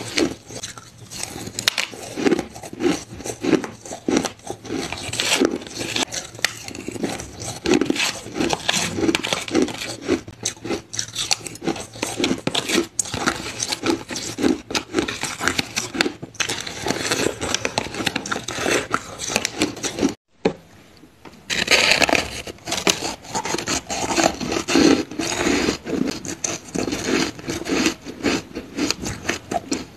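Close-up crunching of ice being chewed and bitten, a dense run of crisp cracking crunches. It drops out briefly about twenty seconds in, then resumes louder as a block of powdery frozen ice is bitten into.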